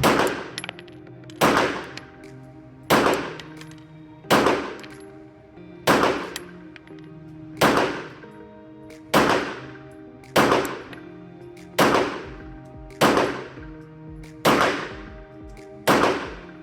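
A Glock 17 9mm pistol fired twelve times in slow, deliberate single shots, about one every second and a half, each report ringing out briefly.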